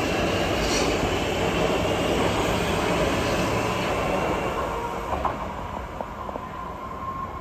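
Siemens MX3000 metro train running past on curved track with a steady rumble of wheels and motors and a faint high whine. The noise eases off about five seconds in as the train draws away, leaving a steady tone and a few light clicks from the rails.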